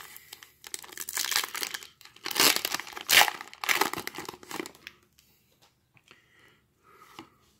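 Foil Pokémon TCG booster pack being torn open and crinkled by hand as the cards are pulled out. The tearing and crinkling is loudest about two to three seconds in, then drops to faint rustles of the wrapper and cards after about five seconds.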